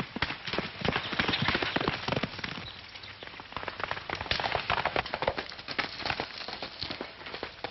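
Horses galloping: a fast, uneven clatter of hoofbeats.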